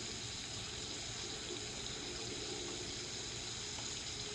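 Bacon and sausages sizzling on a hot griddle: a steady, even hiss.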